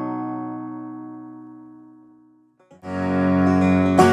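Background music: a held chord fades away over about two and a half seconds, then after a brief pause the music comes back in louder and fuller, with quick picked notes.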